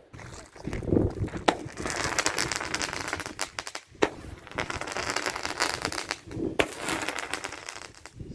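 Consumer fireworks going off: several sharp bangs in a row, each followed by dense crackling.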